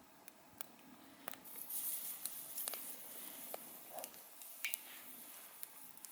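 Wood campfire crackling, with sharp pops scattered irregularly through it and a stretch of hissing from about a second and a half in.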